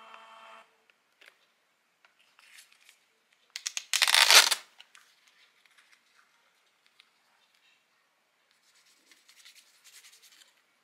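A printed paper strip torn off a mini printer's tear edge: one short rip about four seconds in. Faint paper rustling follows near the end as the printout is handled.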